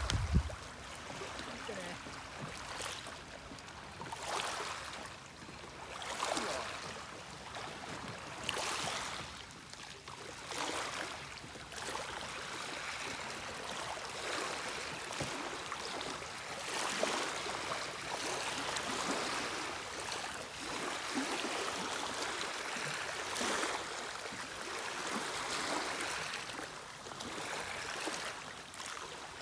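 Small waves lapping and splashing against the shore, the water noise swelling and fading every couple of seconds. There is a short low thump at the start.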